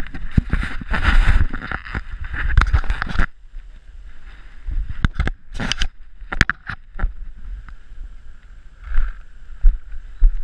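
Rubbing, scraping and knocking of a GoPro camera being handled and fitted against a player's gear. It is loud and dense for about the first three seconds, then quieter, with a few sharp knocks.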